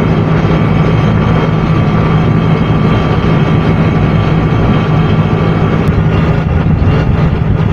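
Electric rotary-vane vacuum pump running steadily with a constant hum, pulling vacuum on the air conditioner's refrigerant lines during brazing so the fumes are drawn out, with the brazing torch's flame hissing alongside.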